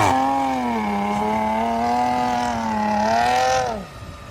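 A vehicle engine held at high revs under load for about three and a half seconds, then the revs fall away and the engine note drops off near the end.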